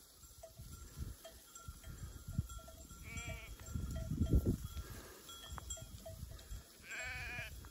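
Sheep bleating twice, once about three seconds in and once near the end, over faint clinking of flock bells.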